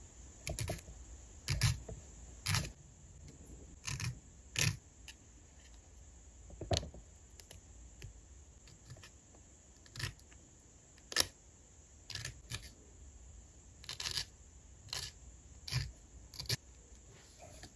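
A nail file scraping in short, separate strokes against the edge of a gel nail sticker, filed straight down at the fingertip to take off the overhanging excess. The strokes come at irregular intervals, sometimes two close together, with pauses between.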